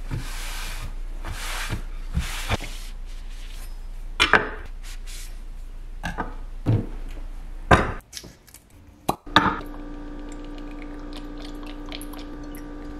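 A cloth wiping a wooden cutting board in three strokes, followed by several sharp knocks as knives are set down on the board. A steady hum takes over in the last few seconds.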